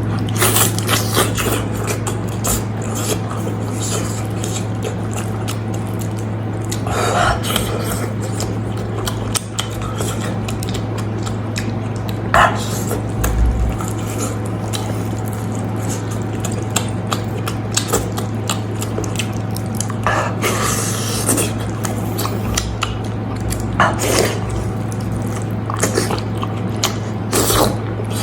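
Close-up wet chewing and slurping of meat and gelatinous trotters, with many small clicks and taps of utensils against a dish, over a steady low hum.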